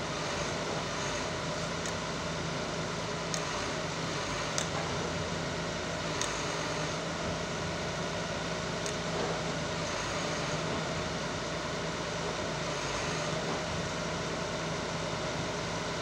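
Diesel engine of a crawler-mounted rotary auger piling rig running steadily, with a few light clicks scattered through.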